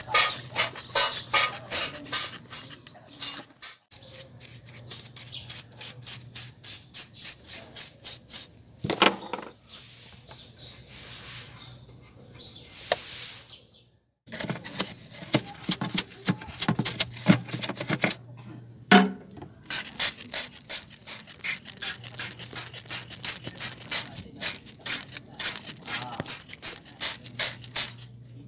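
Hand trigger spray bottle squirting water, pumped in quick repeated strokes, several short hisses a second. The run breaks off about halfway through and then carries on.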